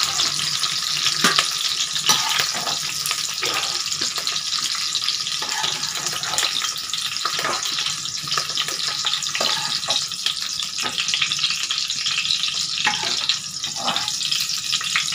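Sliced onions sizzling in hot mustard oil in an aluminium kadhai, steady throughout. Short scrapes and taps of a metal slotted skimmer against the pan are scattered through it as the fried onions are scooped out.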